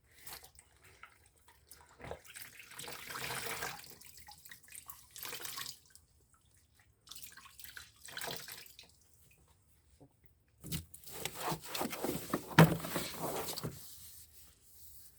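Wet cloth being dipped and wrung out over a bowl of warm vinegar water, water splashing and dripping back into the bowl in irregular bursts, with a sharp knock late on.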